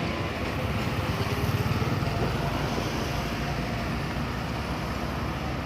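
A bus's diesel engine rumbling as it drives past, with tyre and road noise; the rumble is strongest between about one and two seconds in.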